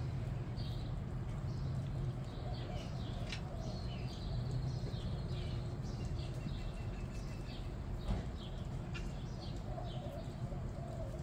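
Steady rain during a thunderstorm heard through an open screened window, with scattered short high chirps of birds outside.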